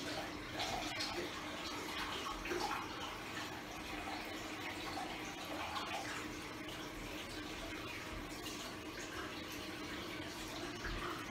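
Water running from a tap into a bathroom washbasin, with hands scrubbing and splashing in the basin.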